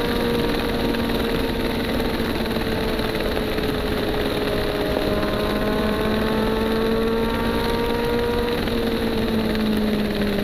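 Motorcycle engine running at a steady cruise, its pitch sagging slightly and then climbing back a little after the middle, under a steady rush of wind noise.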